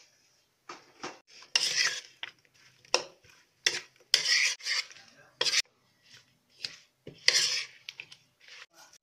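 A metal spoon scraping and clinking against a baking dish as it tosses oiled potato slices, in irregular strokes with a few louder scrapes among them.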